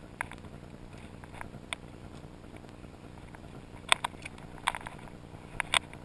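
Scattered sharp clicks and crackles over a low steady rumble: a single click near the start, another a little before two seconds in, a quick cluster about four seconds in, and a pair shortly before the end.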